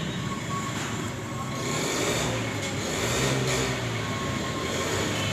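Steady rushing of heavy rain, with a low hum underneath.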